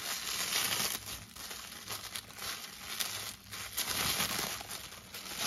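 Thin clear plastic bag crinkling and rustling as hands handle it and work an action figure out of it, with irregular crackles throughout.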